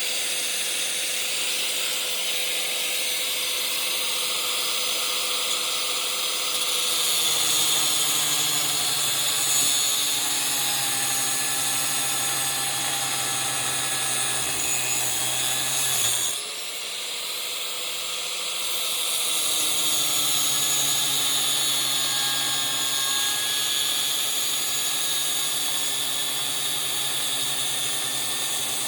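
Angle grinder with a cut-off blade running and cutting through metal on a window air conditioner. Its motor tone sags briefly about halfway through, then climbs back as the cut goes on.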